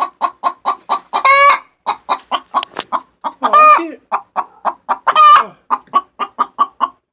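Hens clucking rapidly and steadily, about five clucks a second, broken by three long, loud squawks: the agitated calling of hens fighting over a nest box.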